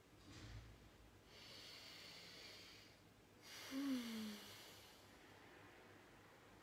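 A person breathing: a soft low bump near the start, then a long breath in, then a louder breath out about four seconds in that carries a short, falling vocal sigh.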